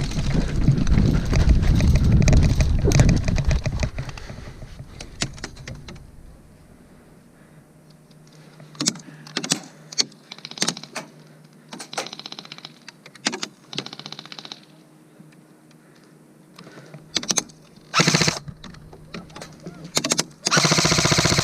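Airsoft rifles firing in short rapid bursts of sharp ticks, with single clicks in between. For the first few seconds the main sound is loud low movement and handling noise from a player running forward.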